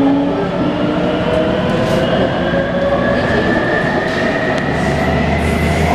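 Taipei Metro C321-type refurbished train running, its traction inverter giving a whine that rises steadily in pitch as the train picks up speed, over the rumble of wheels on the track. The inverter's noise is said to be abnormal.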